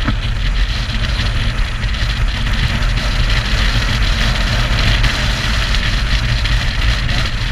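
Motorcycle engine running steadily while riding, with wind rushing over the microphone. There is a brief knock at the very start.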